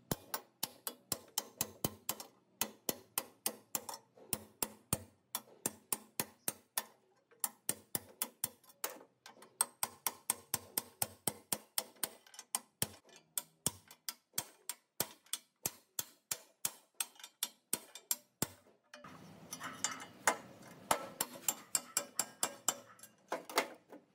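Ratchet wrench clicking steadily, about three clicks a second, as a bolt on a rusted cast-iron machine table is worked. Near the end the clicking gives way to a rougher metal-on-metal scraping and rattling.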